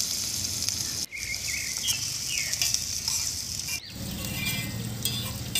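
Chopped onion sizzling in hot oil in a small iron kadai. About four seconds in, a spoon starts stirring and scraping the onion around the pan.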